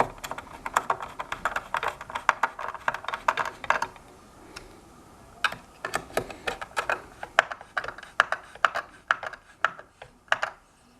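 Rapid, irregular light clicks and taps from hand assembly work on a self-balancing scooter's parts, with a pause about four seconds in before the clicking resumes more sparsely.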